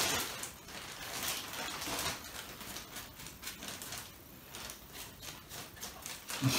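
A thin plastic bag rustling and crinkling as it is handled and large porcini mushrooms are lifted out of it, in irregular bursts.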